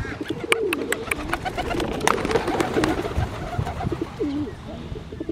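Feral pigeons cooing close by in low, bending calls, with a quick run of clicks and taps through the first two seconds.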